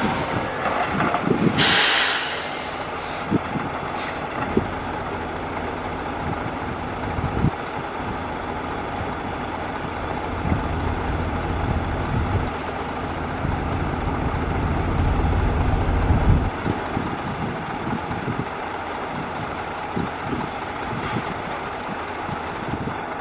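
Dump truck running with its bed raised, tipping a load of dirt and rock, with a sharp air hiss about two seconds in. A heavier low rumble sets in about ten seconds in while the load slides out of the bed, and it stops abruptly about sixteen seconds in.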